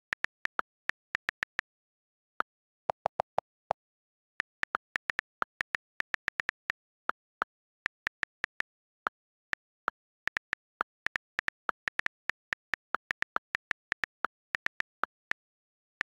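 iPad on-screen keyboard key clicks from typing, coming several a second at an uneven pace. A quick run of deeper-sounding key clicks comes about three seconds in.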